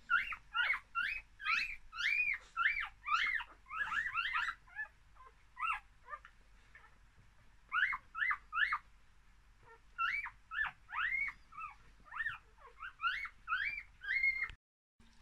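One-day-old English Cocker Spaniel puppies squeaking and crying: runs of short, high, arching squeals, about two to three a second, in bouts with short pauses, cutting off suddenly near the end.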